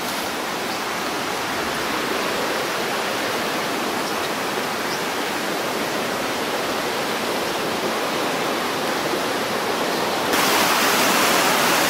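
Rocky mountain river rushing over boulders in a steady roar of water. About ten seconds in it gets suddenly louder and brighter.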